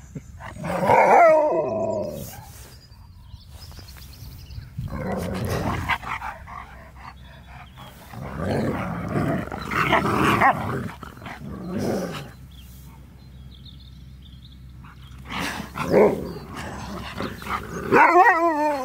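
Huskies vocalizing during rough play: several bouts of growly, wavering calls with short pauses between them, ending in a run of rising-and-falling calls.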